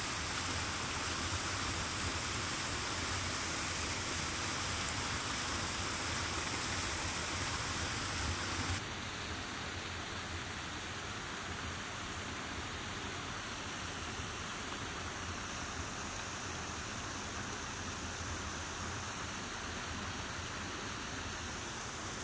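Steady outdoor ambience, an even rushing hiss with no distinct events, which drops suddenly to a quieter hiss about nine seconds in.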